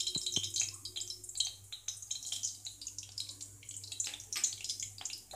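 Whole cloves and cinnamon frying in hot oil in an aluminium kadai at the tempering stage: a thin sizzle with scattered, irregular crackles and pops, and two sharp ticks near the start.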